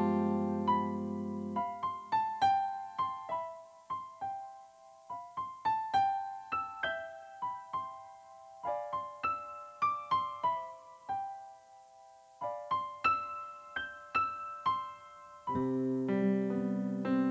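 Gentle background piano music: a slow melody of single struck notes that ring and fade, over low held chords at the start and again near the end.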